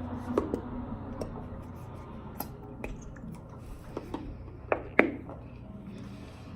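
Scattered sharp clicks and knocks from handling slime containers and a bowl while slime is poured out, the loudest knock about five seconds in.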